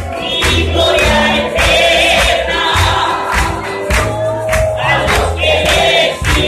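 A large congregation singing a worship song together, many voices on long held notes, over instruments with a low bass line and a steady beat.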